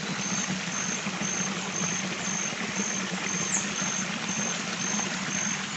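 Spring-fed stream water running and trickling steadily. A faint, high insect chirp pulses evenly about twice a second behind it.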